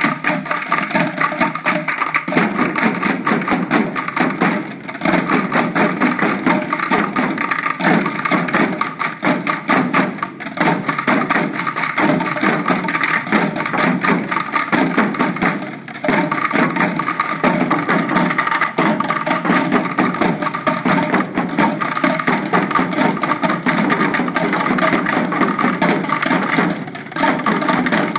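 A group drumming with sticks on upturned plastic buckets, a fast, continuous ensemble rhythm with a few brief breaks.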